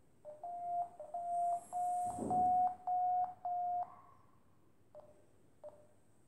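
Smartphone variometer app beeping through the phone's speaker as the phone is lifted by hand: a run of six longer beeps, slightly higher in pitch in the middle, the climb signal, then short single blips again about every two-thirds of a second. A brief bump from the phone being handled about two seconds in.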